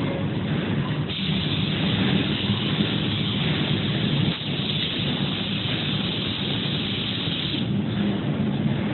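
Steady machine noise from a CNC spray-painting machine: a low hum under a spraying hiss that picks up about a second in and falls back near the end.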